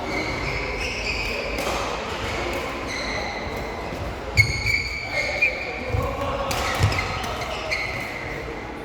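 Shoes squeaking repeatedly on a hard indoor court floor, with a few dull thuds about halfway through, over a murmur of voices echoing in a large hall.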